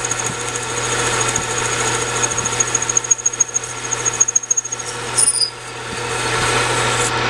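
Metal lathe running while a hand-fed parting tool cuts into a bushing, with a high-pitched squeal from the cut that wavers in loudness. The squeal stops about five seconds in with a brief falling whine.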